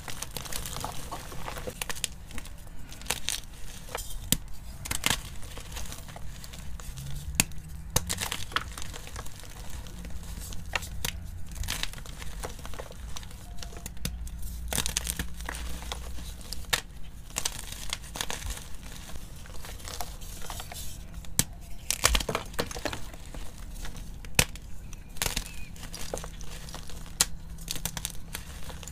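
Blocks of gym chalk squeezed and crushed by hand in a bed of chalk powder: a run of irregular dry crunches and snaps as the blocks crack and crumble between the fingers.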